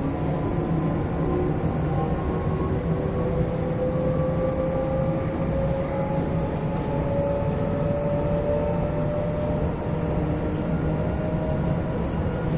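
TIC Trens Série 9500 electric multiple unit running, heard inside the passenger car: a steady low rumble and hum of wheels and running gear, with the electric motor whine slowly rising in pitch.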